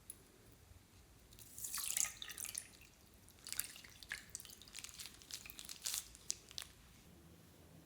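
Clear slime being handled, giving wet, sticky clicks and pops in two clusters: one about one and a half seconds in, a longer one from about three and a half to six and a half seconds.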